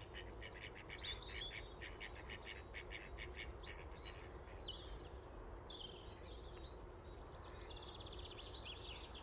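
Several songbirds singing at once, with quick repeated chirps and trills, over a faint steady background rumble.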